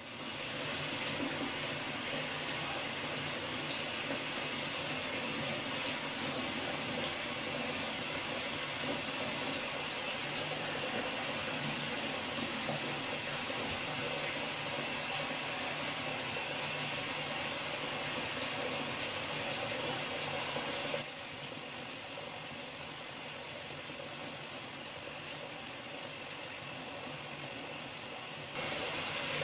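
Bath tap running steadily into a plastic washbasin. The splashing drops noticeably quieter about two-thirds of the way through, then returns just before the end.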